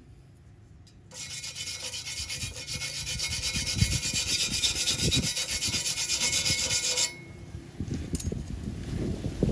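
Wire brush scrubbing across a stick-weld bead on thin square steel tube, cleaning off the slag: a steady, harsh scratching that starts abruptly about a second in and stops abruptly about seven seconds in.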